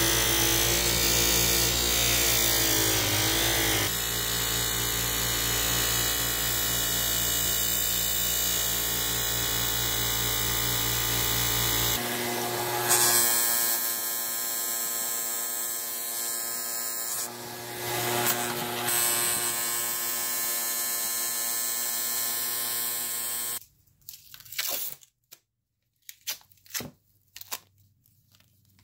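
Craftsman bench grinder running steadily, with steel vise parts held against its polishing wheel. The sound stops suddenly about two-thirds of the way through, leaving near silence with a few faint rustles of a paper towel.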